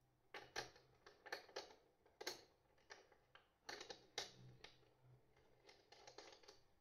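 Light, irregular clicks and taps, about a dozen, from hands handling the wires and connectors on a battery BMS board.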